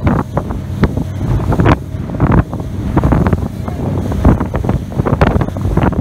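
Wind buffeting the microphone on a fast-moving boat, over the steady rumble of its engine and water rushing and splashing against the hull, with irregular gusts and splashes.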